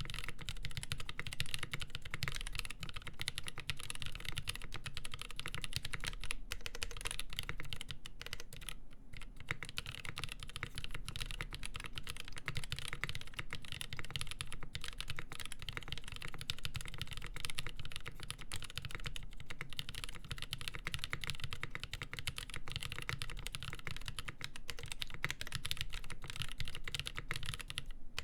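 Continuous fast typing on a custom mechanical keyboard with lubed Nolive Cream linear switches, a full polycarbonate plate and GMK Olivia ABS keycaps: a steady stream of key clacks with short pauses.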